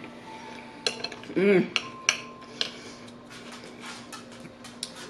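Spoon clinking and scraping against a plate of Frito pie, a few sharp clinks in the first few seconds, with a short hummed sound about a second and a half in. This is followed by a run of faint quick clicks from eating.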